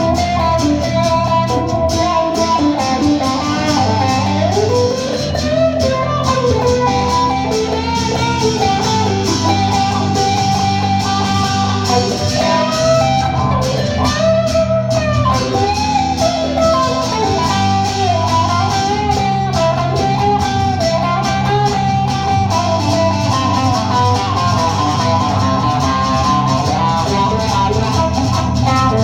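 Live band's instrumental break: a lead guitar plays a melodic solo with sliding, bent notes over steady strummed guitar chords.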